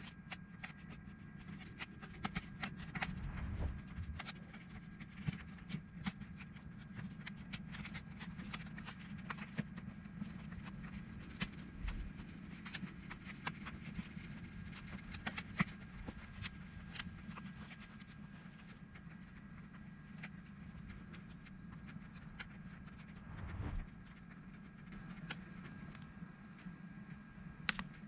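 Wood fire crackling in a fire stand: dense, irregular snaps and pops over a steady low rumble, with a few dull knocks, about three across the stretch.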